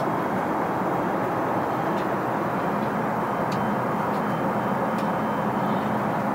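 Steady airliner cabin noise from the Airbus A380's airflow and engines, an even rushing hiss with no change in level. Three faint clicks come through it, about two, three and a half and five seconds in.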